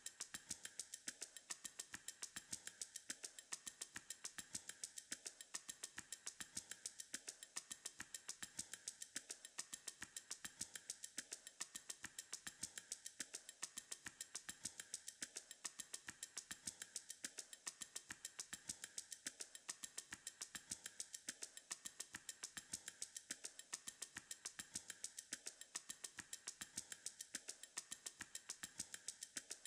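Faint background music: a looping ticking beat, about four ticks a second.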